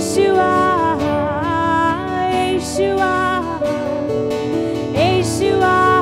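A woman singing a Malayalam Christian worship song in long, gliding held notes, accompanying herself on a strummed acoustic guitar.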